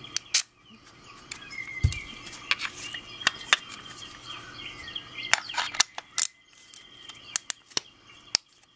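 A series of sharp clicks and clacks as a Magloc push-button trigger lock is handled and fitted onto a gun.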